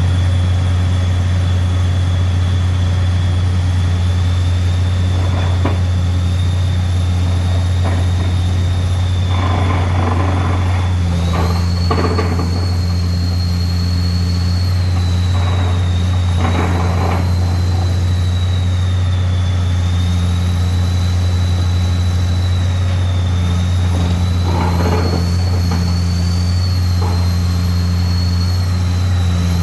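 Vibratory-hammer machine running steadily, a deep even hum with a high whine that wavers slightly in pitch. A few short rattling noises come and go over it.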